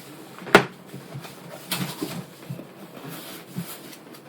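A PC case being worked out of its cardboard box: one sharp knock about half a second in, then scattered scraping and rustling of cardboard and packing.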